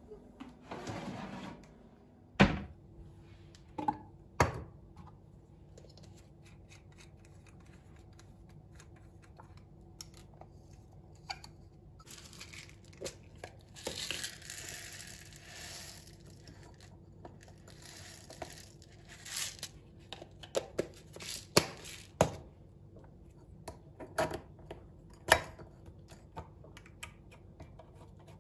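Kitchen handling sounds: scattered knocks and clicks of things being handled and set down, with a few seconds of rustling, papery noise about halfway through, over a faint steady hum.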